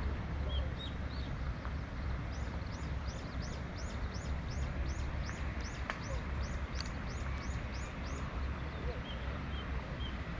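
A bird singing a rapid run of high, repeated notes, about three a second, for several seconds in the middle, with a few softer short chirps before and after. A steady low rumble runs underneath.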